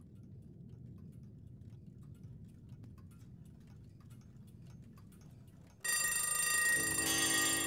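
Faint low hum with scattered faint clicks, then about six seconds in a mechanical alarm clock's bell starts ringing loudly and keeps on ringing.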